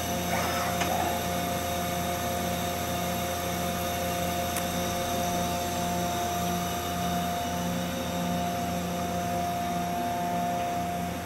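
Mazak Integrex 300-IIIS CNC lathe running: a steady machine whine over a low hum, holding the same pitch throughout.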